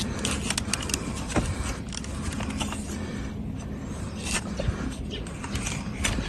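Farrier's hoof-trimming tools cutting and scraping dry, hard donkey hoof horn: irregular sharp clicks and scrapes, the horn so dried out it has no moisture left.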